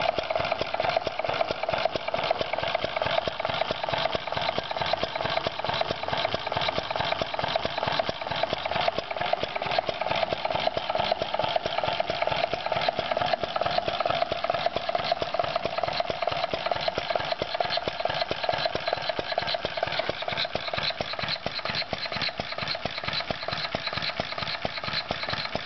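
Small single-cylinder, air-cooled Standard cream separator engine with battery ignition instead of a magneto, running steadily. It fires in a fast, even rhythm.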